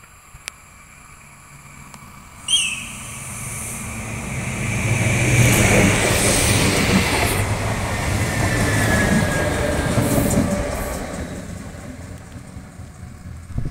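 Renfe Series 447 electric multiple unit running past close by: a short sharp high note about two and a half seconds in, then the rumble and hiss of the train going by, building to a loud passage with a falling whine, and fading near the end.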